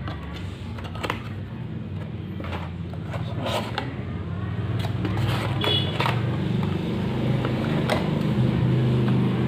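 Cardboard and plastic packaging being handled as a small CPU retail box is opened and its clear plastic tray lifted out: scattered clicks and ticks, over a steady low drone that grows louder towards the end.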